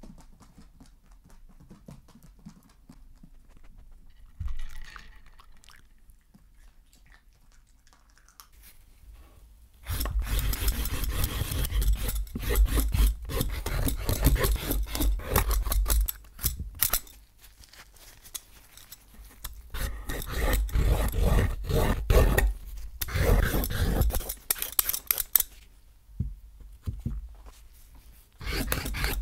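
Loud rasping, rubbing strokes against a wooden cutting board, starting about ten seconds in and coming in stretches of a few seconds with short pauses.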